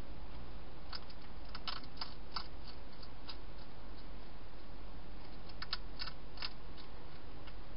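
Wild hedgehog crunching dry food: a quick run of sharp crunches about a second in and another about six seconds in, over a steady hiss.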